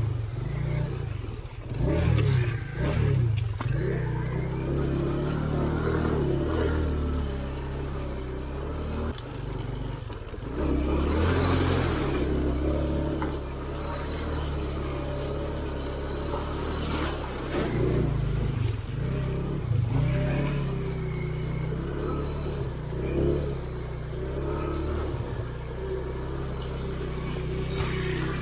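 Vehicle engine running and changing speed, revving up now and then, with a short rush of noise about eleven seconds in.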